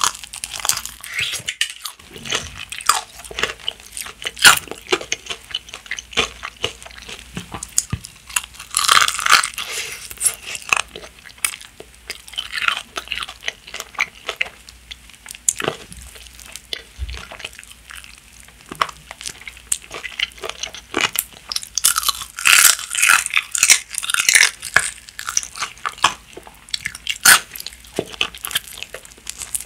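Close-miked crunching and chewing of crispy Bburinkle seasoned fried chicken, with louder bursts of crunchy bites about nine seconds in and again a little past twenty seconds.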